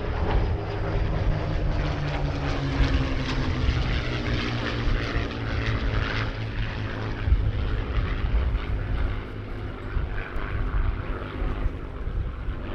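Two Supermarine Spitfire Mk IX fighters passing in formation, their Rolls-Royce Merlin V12 piston engines and propellers droning; the engine note falls in pitch over the first few seconds as they go by, then holds steady.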